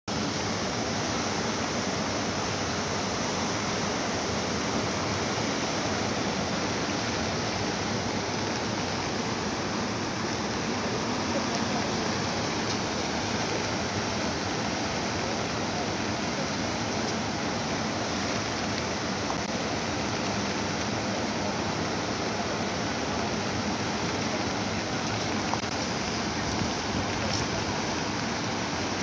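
Fast, muddy floodwater of a river in spate rushing and churning, a steady unbroken rush of water.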